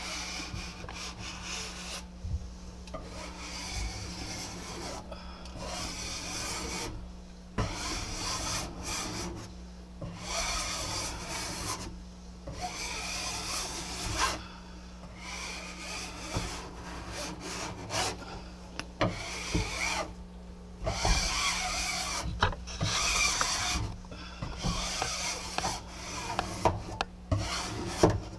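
Hand scraper drawn again and again across a vinyl photo backdrop to press it flat against the glass of a terrarium, stroke after stroke of scraping and rubbing with short pauses between.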